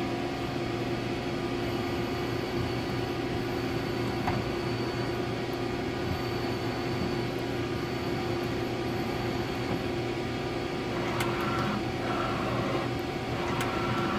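Powered-up Mazak QT 8 CNC lathe humming steadily. Near the end come two short whirs, each starting with a click, as the machine moves.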